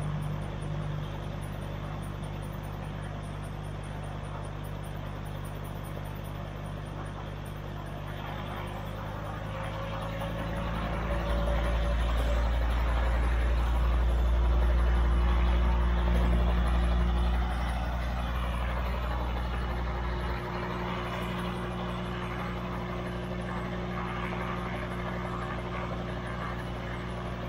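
Robinson R22 Beta helicopter's four-cylinder Lycoming piston engine and rotors running steadily on the ground before takeoff, a steady droning hum of several tones. Partway through, a deep low rumble swells for several seconds, then eases.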